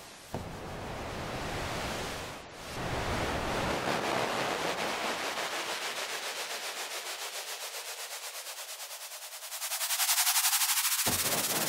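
A synthesized white-noise sweep from a Native Instruments Massive patch rising in brightness as its filter cutoff and frequency shifter sweep upward, with a pulsing that speeds up as the LFO quickens. The note is played again about eleven seconds in and starts over low.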